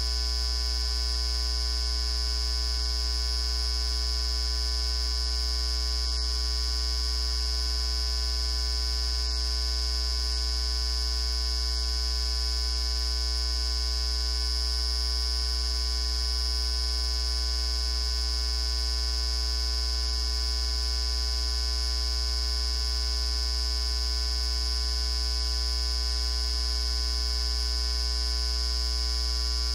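Steady electrical hum: a low drone with a thin, high whine over it, and no other sound.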